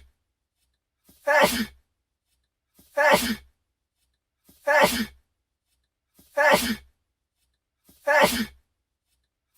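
A man sneezing, the same short sneeze repeated five times at an even spacing of about 1.7 seconds, as a loop.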